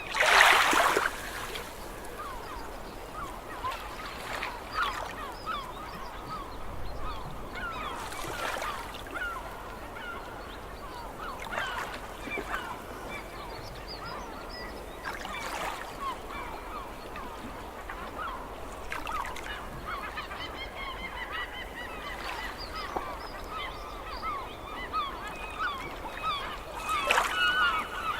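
A large flock of gulls calling, many overlapping squawks and cries at once. A loud rush of noise sounds right at the start, with fainter rushes every few seconds.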